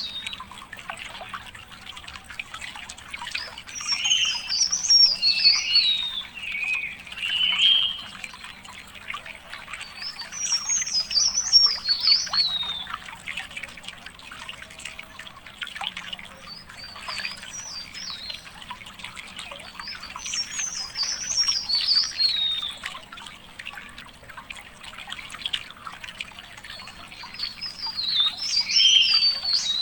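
A songbird singing long, rapid, warbling phrases of two to four seconds each, high-pitched and jumbled, repeating about every six to eight seconds. Beneath the song runs a steady faint trickle of water.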